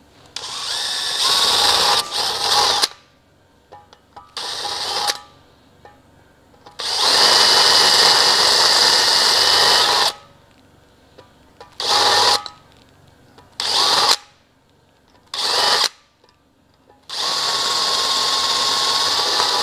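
Cordless drill spinning a cutter down the valve guides of a BMW S50 cylinder head, topping off the protruding valve guide liners flush. It runs in seven bursts of one to three seconds, one guide after another, with short pauses between them.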